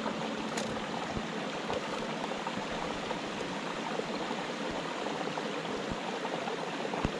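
Creek water running steadily over rocks, a continuous rushing hiss.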